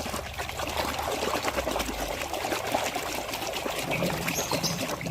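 Water pouring and trickling over a muddy toy vehicle as it is rinsed clean.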